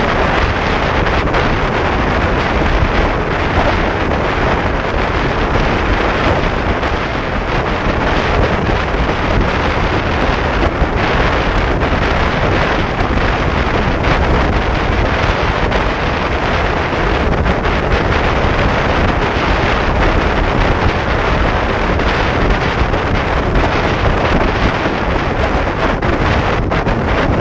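Steady, loud wind noise buffeting an action camera's microphone on a motorcycle ridden at highway speed. The rush of air covers everything evenly, with no engine note or revving standing out.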